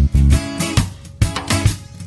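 Instrumental music: guitar over bass and a steady drum beat.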